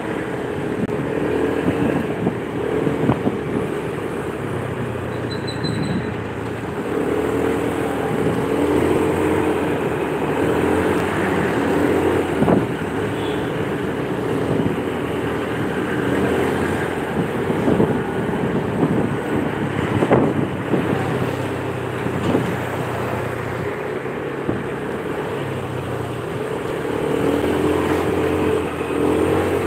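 Motorcycle engine running while riding, its pitch rising and falling with the throttle, over steady wind and road noise. A few sharp knocks stand out.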